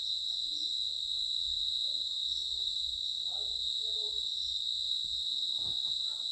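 Insects trilling in one steady, unbroken high-pitched drone, with a fainter second tone an octave above.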